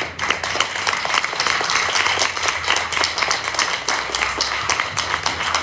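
Audience applauding, many hands clapping at once; it starts suddenly and keeps up steadily.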